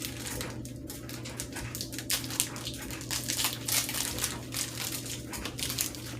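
Candy wrapper crinkling and rustling in irregular crackles as a pack of Reese's peanut butter cups is torn open and handled, over a steady low hum.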